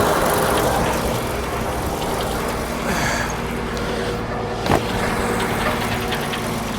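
Frick sawmill running steadily between cuts, its engine making a steady hum, with one sharp knock about two-thirds of the way through.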